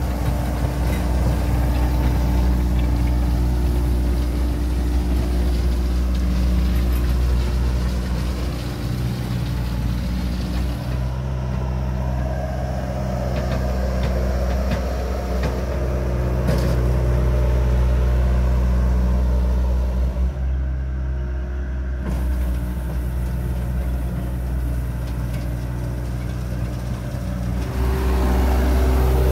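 Bobcat S130 skid-steer loader's diesel engine running steadily under work, its tone shifting a couple of times.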